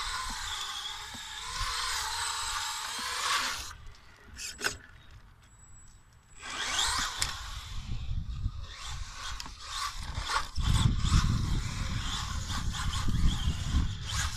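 Tamiya radio-controlled rally car driving on concrete: a rough hiss of motor and tyres that comes and goes with the throttle, dropping out for about two seconds a third of the way in, then rising whines as it speeds up again. A low rumble joins in for the last few seconds.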